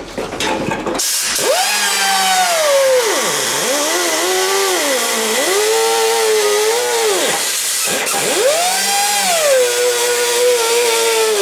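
Power cut-off tool cutting steel on a Volkswagen bus. It starts about a second in, and its whine drops in pitch each time the disc bites into the metal, then climbs back as the load comes off, several times over.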